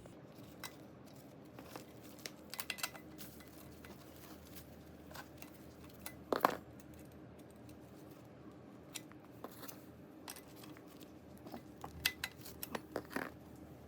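Scattered light clicks and metal taps of a wrench and small bicycle parts being handled while a nut is loosened and a basket mount fitted, with one louder knock about six and a half seconds in and a quick run of ticks near the end.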